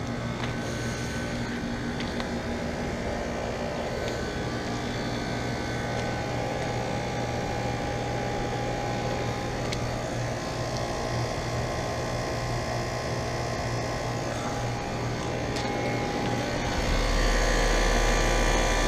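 Outdoor condensing units of Comfortmaker central air conditioners with Copeland scroll compressors running: a steady compressor hum under the rush of the condenser fans. Near the end the sound gets louder, with a deep rumble added.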